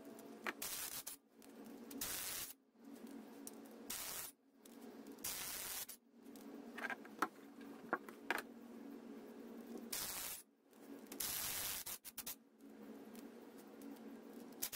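DeWalt cordless driver running in repeated short bursts as it backs out the bolts of a Dana 44 front differential cover, with a few sharp clinks about seven to eight seconds in.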